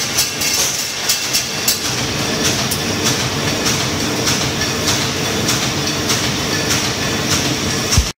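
Automatic broom-handle assembly machine running: a steady mechanical clatter, with metal handle tubes clacking in the chain conveyor about twice a second over a constant hum.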